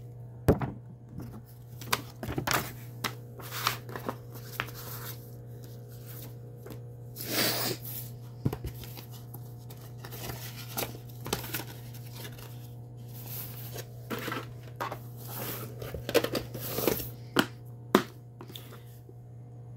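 Paper inserts and plastic VHS cases being handled: paper rustling and crinkling, with scattered sharp clicks and knocks, over a steady low hum.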